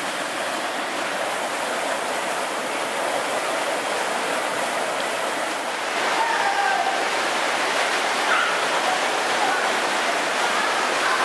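Water rushing steadily down an artificial whitewater rapids channel, a continuous roar of turbulent flow; it gets a little louder about six seconds in.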